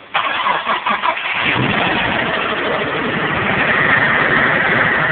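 Mitsubishi VR-4 twin-turbo V6 cranking over for about a second, then catching and idling cold. The owner suspects a spun bearing and reports low oil pressure.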